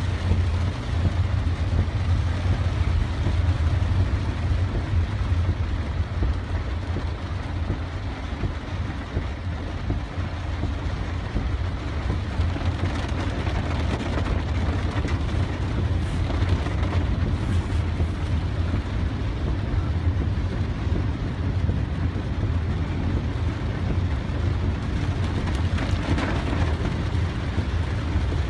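Steady low drone of a car's engine and tyres heard inside the cabin while driving slowly through floodwater, under a constant even hiss of water.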